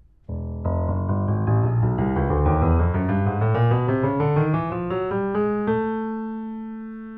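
Short intro music: a quick run of notes climbing steadily in pitch over a low bass, landing about six seconds in on a held chord that rings out and slowly fades.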